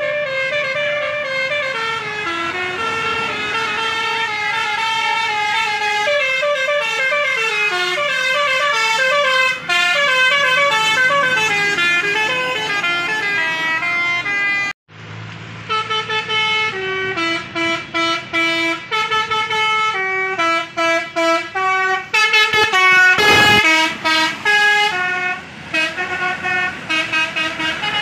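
Bus basuri horn, a musical multi-tone horn, playing a melody note by note. It breaks off briefly about halfway through, then plays another tune.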